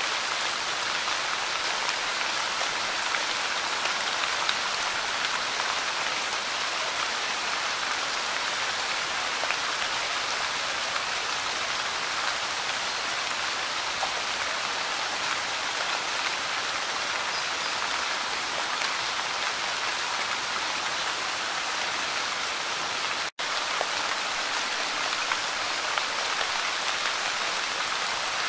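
Light rain falling on Monstera deliciosa leaves: a steady, even hiss of fine drops, flecked with tiny ticks. It cuts out for an instant about three-quarters of the way through.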